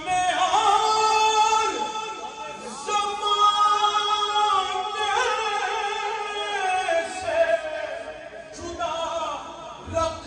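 A solo voice singing a Punjabi naat, Islamic devotional verse, in long held notes with wavering ornaments.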